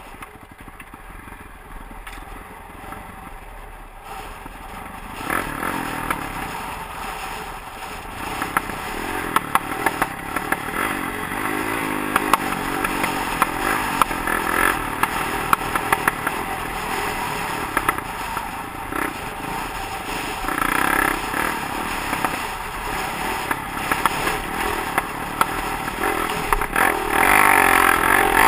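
Honda CRF450X dirt bike's single-cylinder four-stroke engine running and revving up and down while riding a rocky trail, with the bike clattering and rattling over the rough ground. Quieter for the first few seconds, it gets louder about five seconds in and again near the end.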